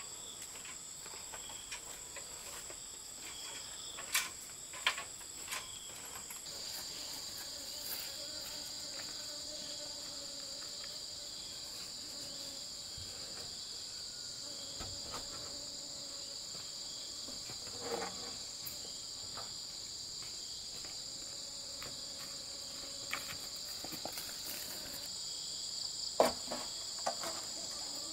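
A steady high-pitched chorus of insects in two buzzing layers, one of which grows louder about six seconds in. A few sharp knocks and clicks come through it, the loudest near the end.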